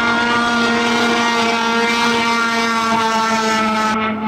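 Engine held at high, steady revs, giving a loud, even drone.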